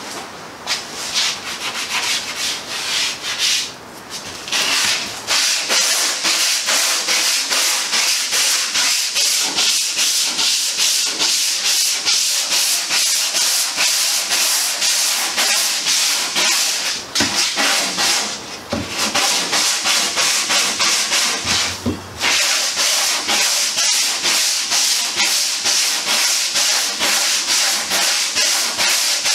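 Long sanding block with 60-grit paper scraping over a cured skim coat of Total Fair fairing compound on a boat's bow, worked by hand in quick, even back-and-forth strokes. Brief pauses come about four seconds in and twice more past the middle as the block is repositioned.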